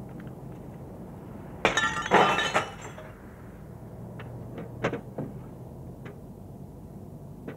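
A pane of glass is smashed, shattering loudly for about a second. A couple of seconds later come a few short clinks and taps.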